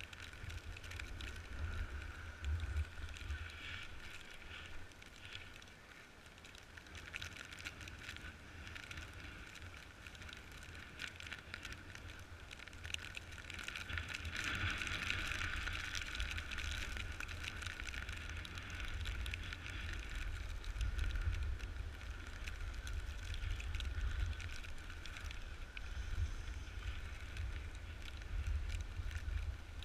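Snowboard sliding and carving down a snowy slope: a steady scraping hiss from the board on the snow, louder about halfway through, with wind buffeting the microphone.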